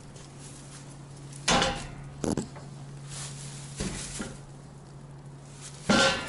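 A few sudden knocks and clatters, the loudest about one and a half seconds in and again near the end, over a steady low hum.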